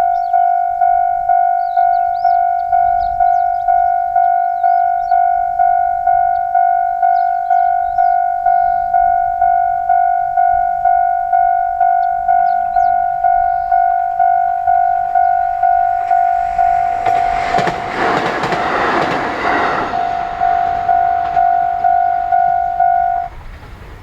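Japanese railway level-crossing alarm ringing its repeated electronic 'kan-kan' bell, about one and a half strikes a second. About three-quarters of the way through, an H100 'DECMO' diesel-electric railcar rushes across for a few seconds with wheels clacking over the rail joints. The alarm stops shortly before the end.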